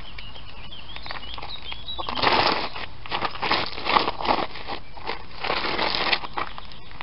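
A ballet flat scuffing and scraping through loose gravel and dirt: several rough scrapes starting about two seconds in and lasting about four seconds. A bird chirps faintly before the scraping starts.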